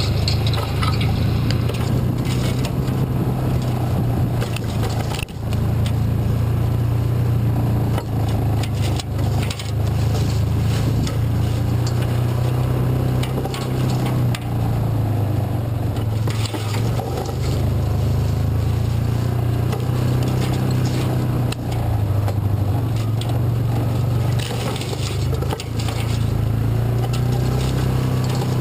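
Yamaha Rhino side-by-side's engine running steadily with a low drone, with scattered short knocks and scrapes throughout.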